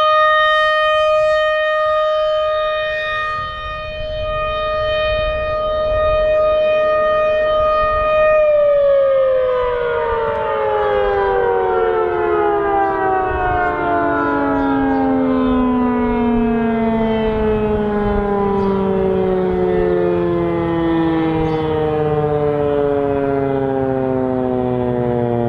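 American Signal Corporation RM-130 rotating tornado siren, driven by a 7.5 hp DC motor, sounding its steady alert tone. About eight seconds in, the alert signal ends and the siren winds down, its pitch falling slowly and steadily.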